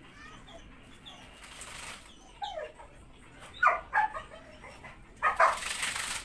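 Small long-haired dogs barking and yelping in short, sharp calls, several times, louder near the middle and end. Near the end the last yelps come with a rush of hissing noise.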